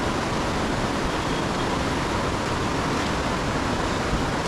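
Rushing river water: a steady, even roar of flowing current with no let-up.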